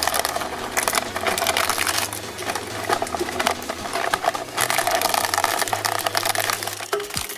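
Shredding machine running, its motor humming under dense crackling and clicking as it chews through a rubbery Stretch Armstrong toy; the sound stops near the end.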